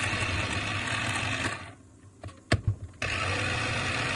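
Electric mini food chopper running, its blades chopping cabbage. It stops for about a second near the middle, a few sharp clicks sound, and then it runs again.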